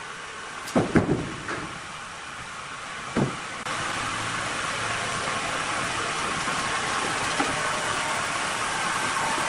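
Sawmill machinery running with a steady hiss, with a few heavy knocks of wood about a second in and again about three seconds in. Then, just under four seconds in, a louder steady cutting noise starts and carries on.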